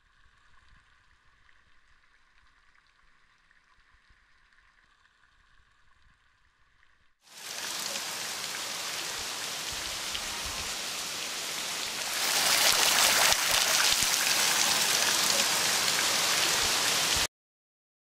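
Waterfall pouring and splashing onto rock: a loud, even noise of falling water that comes in suddenly about seven seconds in, grows louder about twelve seconds in, and cuts off abruptly near the end. Before it, only a faint steady high tone.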